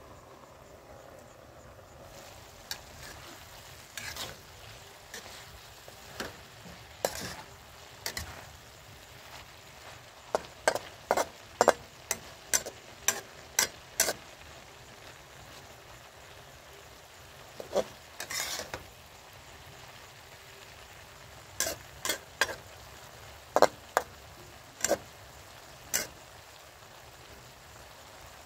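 Metal spatula scraping and clanking against a steel wok during stir-frying, over a steady sizzle. The clanks come in quick runs, one in the middle and another near the end, with a longer scrape in between.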